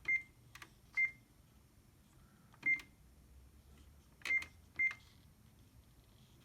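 Keypad buttons on an HP LaserJet 3330 control panel pressed one at a time, each press giving a click and a short high beep. Five presses at uneven intervals, the last two close together.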